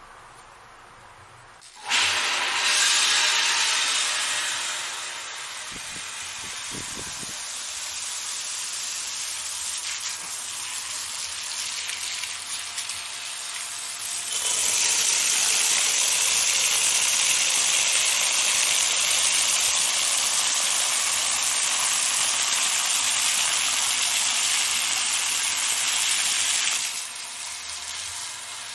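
Well water gushing out, starting suddenly about two seconds in. About halfway through it becomes louder as it pours into a stainless steel pot and fills it, then stops shortly before the end.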